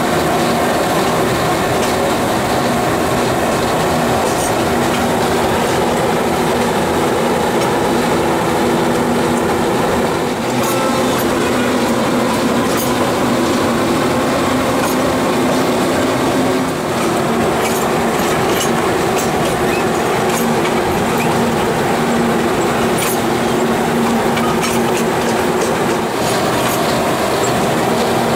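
Small narrow-gauge diesel locomotive running along the line, heard from on board: a steady engine drone under the rumble of the wheels, with scattered clicks from the rails.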